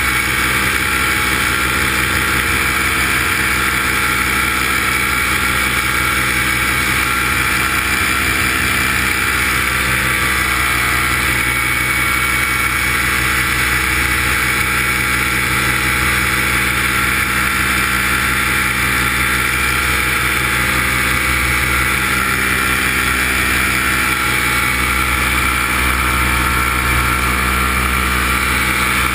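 The motors and propellers of a remote-controlled camera aircraft in flight, heard from its onboard camera: a loud, steady, even drone with a high whine that holds one pitch throughout.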